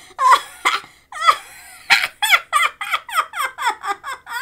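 A person laughing hard in high-pitched, quick bursts, with a short catch of breath about a second in, then a fast run of about four ha-ha pulses a second.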